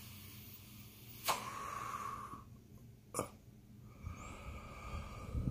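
A person drawing on a portable vaporizer and breathing the vapour out. A sharp click comes about a second in, followed by a short airy hiss, then a second click around three seconds in, and a breathy rush near the end.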